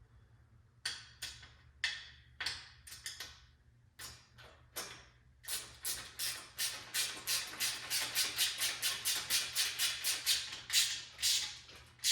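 Repeated sharp knocks, like hammer or mallet strikes on metal parts. A few scattered blows come first, then a steady run of about three a second. They fit the parts of a modular welding table being knocked into place during assembly.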